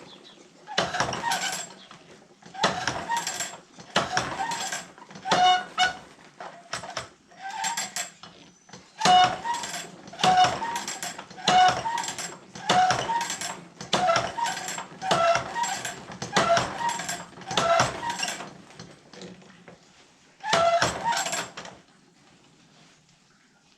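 Manual tooth setter being worked tooth by tooth on a steel sawmill band blade: a run of sharp metallic clanks, each with a brief ring from the blade, about one every second or so, with a short pause near the end before a last clank.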